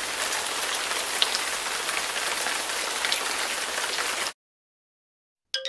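Steady patter of rain falling on leaves and surfaces, with a few louder single drops. It stops abruptly about four seconds in.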